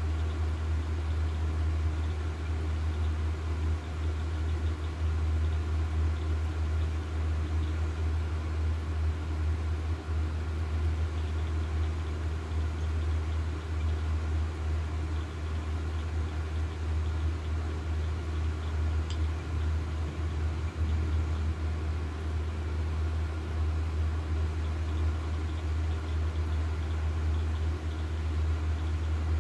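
A steady low hum with fainter steady tones above it, unchanging throughout.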